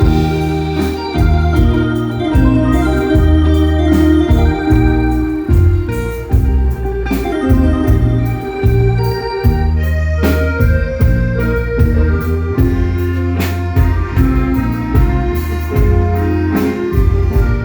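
Live instrumental music from a small Thai procession sound truck: an electronic keyboard with an organ sound plays a melody over a steady bass line, loud through the truck's PA speakers.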